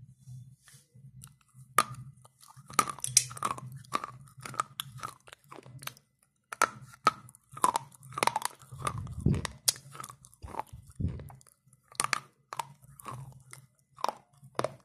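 Dry slate pencils being bitten and chewed close to the microphone: irregular sharp crunches, several a second at their densest, over a faint steady low hum.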